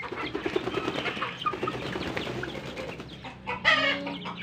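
A flock of native and bantam chickens with chicks clucking together as they feed on scattered grain, many short overlapping calls, with one louder, brief squawk near the end.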